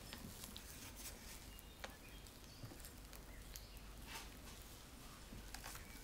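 Wooden spatula folding meringue into sponge-cake batter in a bowl: faint soft squishing and swishing strokes, with a few light ticks, the clearest just under two seconds in.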